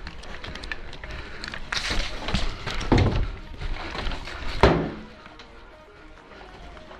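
Irregular clicks and knocks, with two heavy thuds about three seconds in and again near five seconds in.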